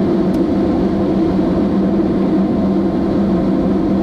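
Steady engine and machinery drone, an even hum with no change in speed.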